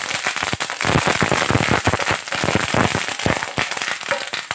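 Fresh curry leaves spluttering in hot coconut oil with dried red chillies and fried shallots, stirred with a wooden spatula: a loud, dense, rapid crackle of pops. This is the tempering (tadka) for sambar.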